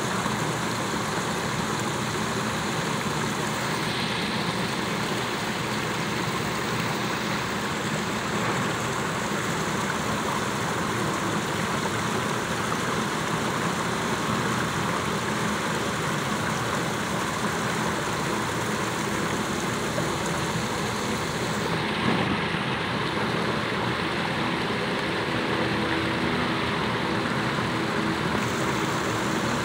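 Steady rushing and splashing of a plaza fountain's water, mixed with a low hum of city traffic.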